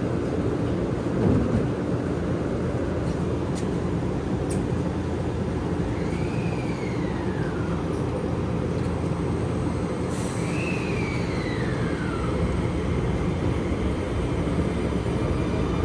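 Keio Line commuter train standing at the platform with its doors closed, giving a steady running hum and rumble. Two brief whines rise and then fall in pitch, about six and about ten seconds in.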